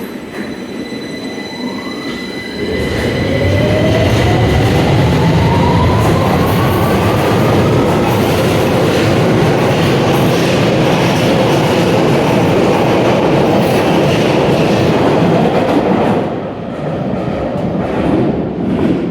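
London Underground Victoria line train pulling away: a loud rumble sets in a few seconds in, with the traction motors' whine rising in pitch as the train speeds up, then eases off near the end.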